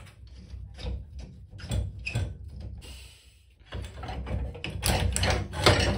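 Irregular clicks, knocks and scrapes of an old combi boiler's diverter valve being worked loose by hand and pulled out of its housing, busiest in the last two seconds.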